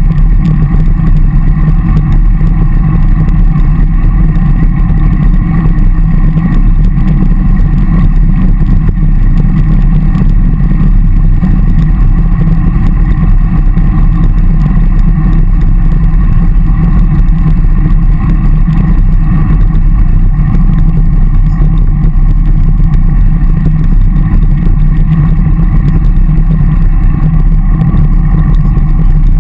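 Loud, steady wind rumble on a bike-mounted action camera's microphone while riding along, a deep, even roar with no breaks.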